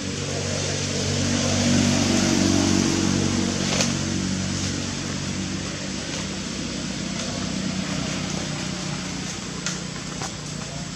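A motor vehicle engine running steadily. It grows louder in the first two seconds and then slowly fades, with a sharp click near four seconds in.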